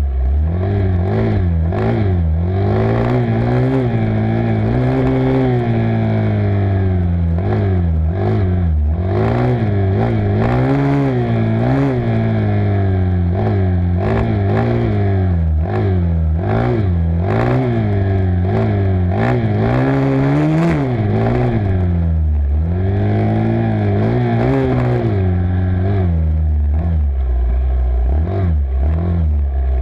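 Engines of a Honda 250 dirt bike and a Yamaha 350 quad on a rough wooded dirt trail. The nearer engine revs up and falls back every second or two as the throttle is worked, with clattering knocks over the rough ground.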